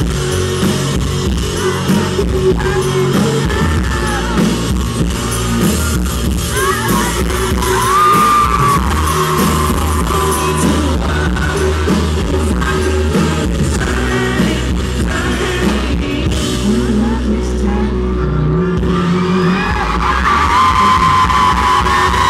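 Live rock band playing with the singer's amplified vocals, heard from within the audience in a large hall, with shouts and whoops from the crowd over the music.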